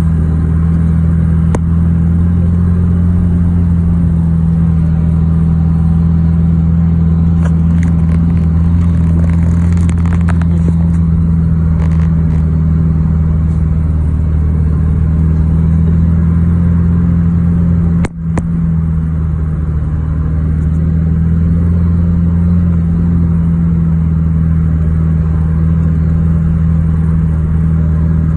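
Vehicle engine and road noise heard from inside the cabin while driving: a steady low drone that holds its pitch, with a sharp click and brief drop-out about two-thirds of the way through.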